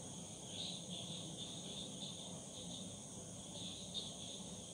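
Quiet background with a faint, steady high-pitched chirping that swells now and then.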